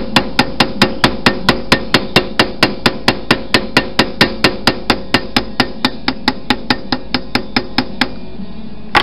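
Small hammer peening a rivet over in a metal aileron pushrod tube against a bench vise's anvil: quick, even blows at about four a second, setting the rivet. The blows stop about eight seconds in, with one last blow near the end.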